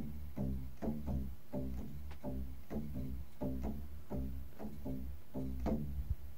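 Taut 550 paracord strung between bent green juniper-sapling hoops being plucked by hand like a bass string. It gives a run of low, twanging notes, about three plucks a second, each ringing briefly, and they stop shortly before the end.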